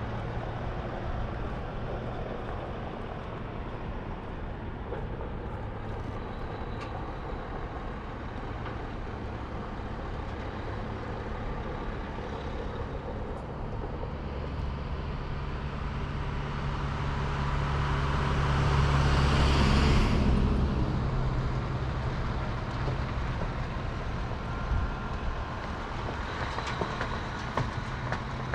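Road traffic running steadily, with one vehicle passing close: its noise builds to the loudest point about twenty seconds in, then fades away.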